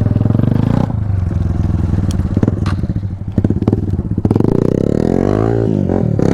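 Hero XPulse 200 Rally Edition's single-cylinder engine running hard as the motorcycle is spun round on loose ground, with short clicks of stones clattering under the tyres. The revs climb and then drop away between about four and six seconds in.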